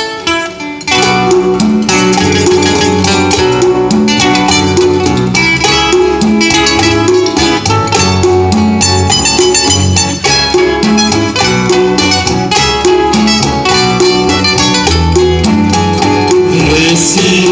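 Live guitar group playing the instrumental introduction of a bolero: a plucked guitar melody over rhythmic guitar accompaniment and a steady bass line.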